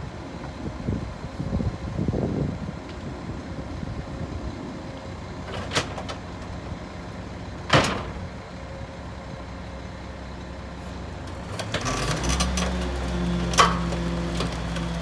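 Garbage truck's diesel engine idling while bulk wood debris is tossed into the Leach rear loader's hopper, landing with sharp knocks about six and eight seconds in. About twelve seconds in, the engine speeds up and holds there as the packer cycle is engaged to power the hydraulics, with another knock shortly after.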